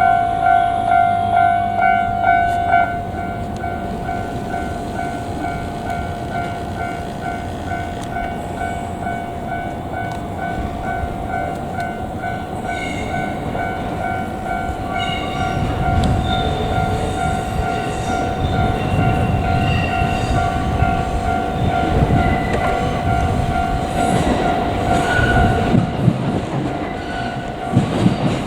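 Level-crossing warning signal ringing as a steady two-note tone, pulsing at first and then held. A JR Kyushu 787-series electric train passes over the crossing from about halfway, with a rumble and wheel clatter that grow louder near the end.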